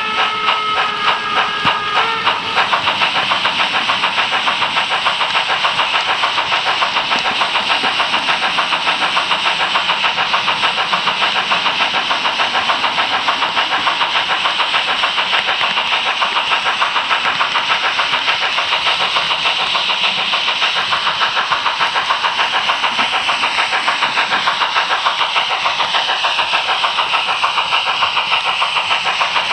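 H0-scale model locomotive running along the track, giving a steady engine-like running sound with a quick regular pulse of about four beats a second. A held whistle tone stops about two seconds in.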